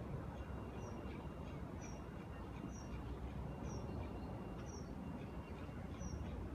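Motorised dish rotator turning a mesh satellite dish: a faint steady whine with a short high squeak repeating evenly about once a second, over a low outdoor rumble.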